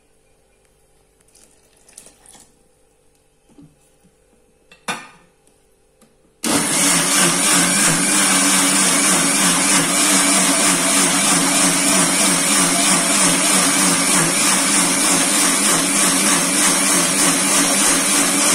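Electric mixer grinder (mixie) running steadily, grinding grated carrot with water into a fine pulp for juice. It starts suddenly about six seconds in, after a few light knocks.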